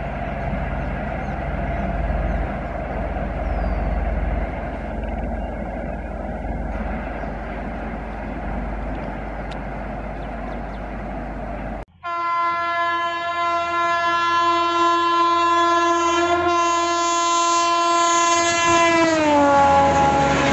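A low steady rumble of a train running away down the line. Partway through, an Indian Railways electric locomotive's horn sounds loud and unbroken for about seven seconds, its pitch dropping sharply as the locomotive passes at speed, followed by the rush of the coaches going by.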